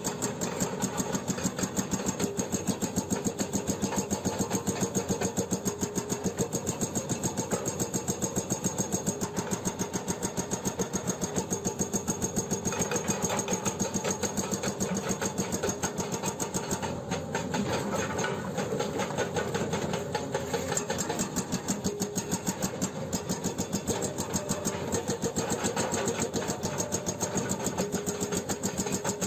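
Excavator-mounted hydraulic breaker on a Hyundai 210LC-7 excavator hammering rock in a rapid, even rhythm of blows, over the excavator's running diesel engine.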